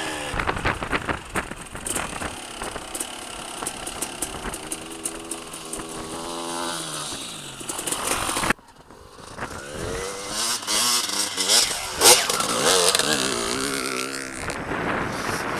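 Enduro motorcycle engine running, its revs rising and falling, with scattered clicks and knocks. The sound cuts off abruptly about eight and a half seconds in, then picks up again with more revving.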